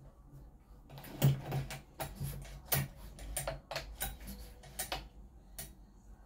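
Irregular sharp clicks and knocks of parts being handled and fitted onto a 395XP-clone chainsaw, starting about a second in and stopping shortly before the end.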